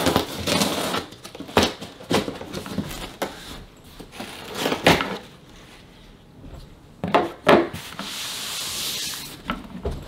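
A blade slicing through packing tape on a large cardboard shipping box, then the cardboard flaps being pulled open, with rubbing, scraping and several sharp knocks of the box being handled.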